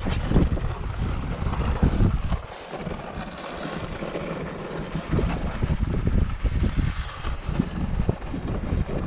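Wind buffeting an action camera's microphone in uneven low gusts, easing for a couple of seconds about two and a half seconds in, then picking up again.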